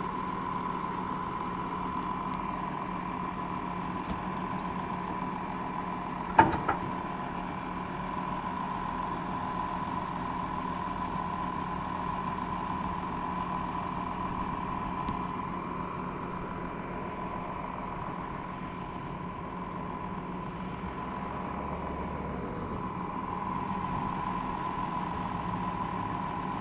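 John Deere tractor's diesel engine running steadily at low revs, with a steady hum. A single sharp knock about six seconds in.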